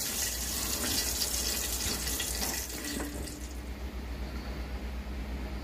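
Hot frying oil in a wok sizzling with a steady hiss just after the fish is lifted out and the flame is turned off. About three seconds in, it cuts to a quieter low hum.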